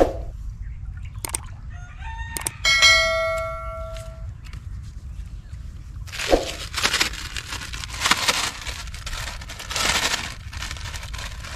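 A rooster crows once about three seconds in: a rising call that ends in a long held note. From about six seconds on, a plastic bag rustles and crinkles in bursts as it is handled.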